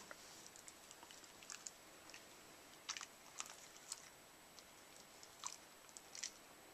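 A whippet crunching popcorn, with short crisp crunches coming in scattered clusters a second or so apart.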